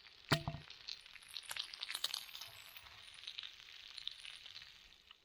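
Bacon sizzling in a frying pan over a campfire, a steady hiss with many small crackling pops. A short clunk about a third of a second in.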